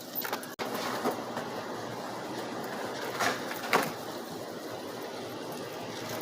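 Skateboard wheels rolling on pavement with a steady rumble, broken by a few sharp clacks of the board, the two loudest a little past three seconds in, about half a second apart.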